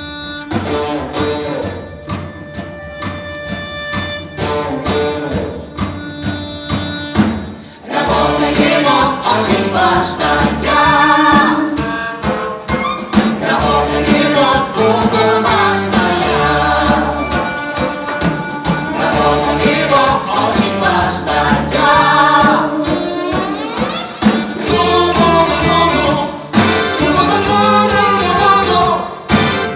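Live theatre orchestra playing a song. A quieter instrumental passage with held notes gives way about eight seconds in to louder singing by several voices over bass and a regular beat.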